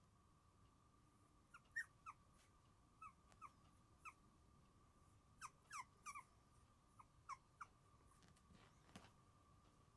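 29-day-old Shiba Inu puppies giving a string of short, high squeaks and whimpers, about a dozen, each dropping in pitch. They start about a second and a half in and die away after about eight seconds.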